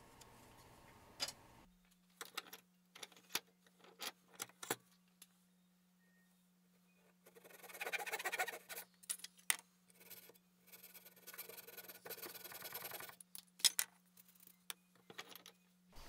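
Fine-toothed hand saw cutting a notch into a small wooden block, in two spells of short rasping strokes, with scattered light clicks and knocks of wood and tools before and after.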